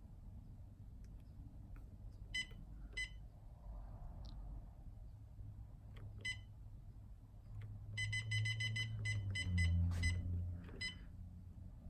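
Humminbird Helix 7 fish finder giving short, high electronic beeps as its rotary dial and keys are worked through menu settings: a few single beeps, then a quick run of about eight beeps about eight seconds in, then a few more. A low hum swells underneath between about eight and ten and a half seconds in.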